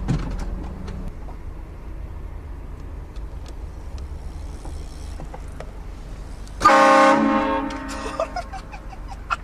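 A car-mounted train horn gives one blast about two-thirds of the way in: a chord of several steady tones, loud for about half a second, then trailing off. Before it the car's low engine rumble runs steadily.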